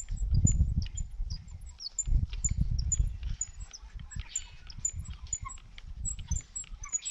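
Wind gusting on the microphone in low surges, with blackbirds in the trees giving a steady run of short, high chirps about twice a second.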